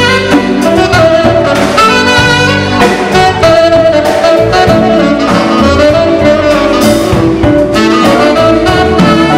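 Saxophone playing the lead melody in long held notes over a live band of electric guitar, bass guitar and drum kit.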